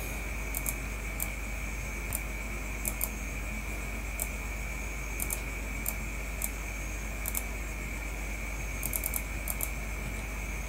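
Light, irregular clicking of a computer mouse, about twenty clicks, some in quick pairs and a short flurry near the end, over a steady background hiss with a faint high whine and a low hum.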